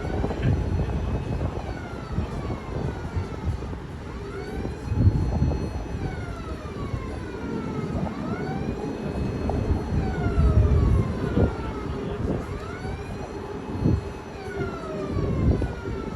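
A siren wailing, its pitch sweeping down and back up about every three seconds, over a steady tone and occasional low rumbles.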